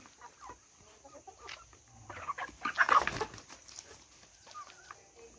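A flock of village chickens clucking while they peck at feed, with short scattered calls and a louder, noisy flurry lasting about a second around the middle.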